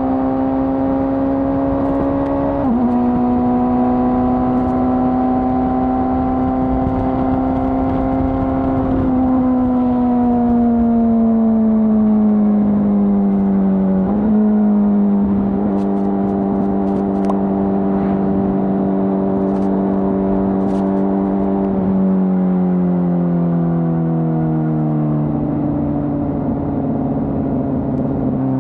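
2025 Honda CBR600RR inline-four engine with the stock exhaust, running at steady high revs under way. Its pitch dips briefly a few seconds in, slides down as the bike slows, jumps back up at a downshift about halfway, holds steady, then falls again near the end. Road and wind rumble runs underneath.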